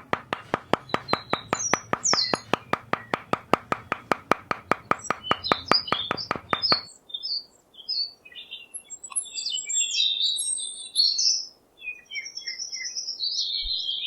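Small birds chirping and twittering throughout. For the first seven seconds there is also a rapid, even mechanical ticking, about five ticks a second over a low hum, which stops abruptly.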